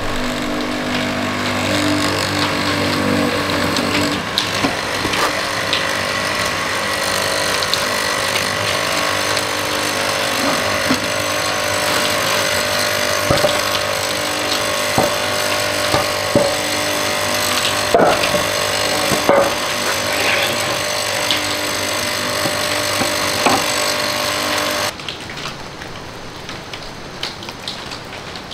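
Benchtop hollow-chisel mortiser running with a steady motor hum while its square chisel is plunged into a hardwood beam, with sharp knocks and cracks as the chisel cuts and chips the wood. About three seconds before the end the machine sound stops, leaving a quieter background.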